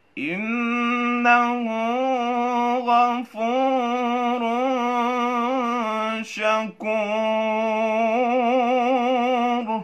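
A young man's voice chanting the Quran in melodic tajweed recitation, drawing out long, ornamented notes with a wavering pitch. He breaks off briefly for breath about three and six and a half seconds in.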